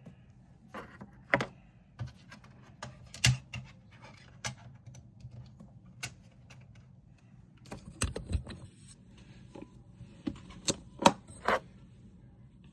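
Irregular clicks, taps and rattles of things being handled, with a few louder knocks.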